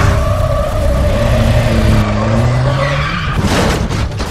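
A car's engine running hard at high revs as it speeds past, then a short burst of tyre skid noise about three and a half seconds in as the car goes out of control off the road.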